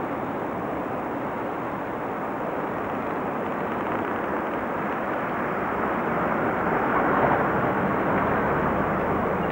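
Wind and breaking surf: a steady rushing noise that swells a little about seven seconds in.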